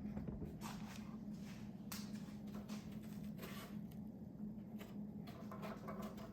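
Faint handling noises of hands working on a taxidermy mount: scattered small taps, clicks and rustles over a steady low hum.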